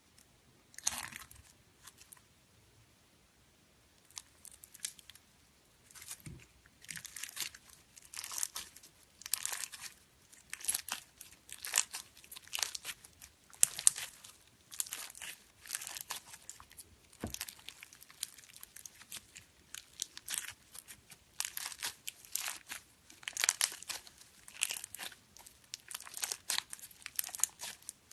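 Slime being squished and played with, making crackling, crunchy bursts about once a second after a sparse first few seconds.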